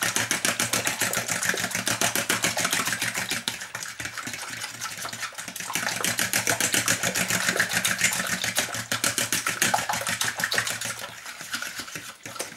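Fork beating eggs in a plastic bowl: a rapid, even clatter of the tines against the bowl and the sloshing egg, easing briefly about four seconds in and again near the end.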